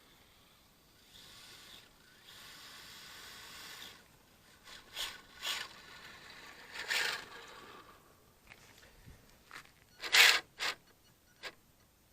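3D-printed RC monster truck running in short spurts, with scraping and rubbing over the ground. The loudest scrape comes about ten seconds in.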